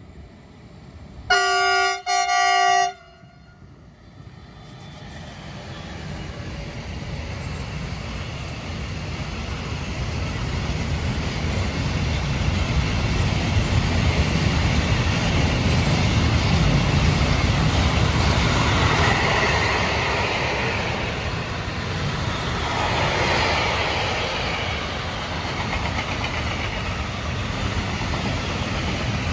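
A Traxx AC2 electric locomotive sounds its horn in two short blasts. Then the loaded container freight train approaches and passes close by: a steady noise of wagons rolling on the rails that builds over several seconds and stays loud.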